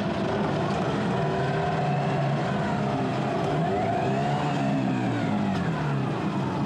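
Yamaha 9.9 outboard motor running, revved up once and back down about midway. It is being test-run after a new water-pump impeller and lower-unit rebuild, with the cooling-water tell-tale now flowing strongly.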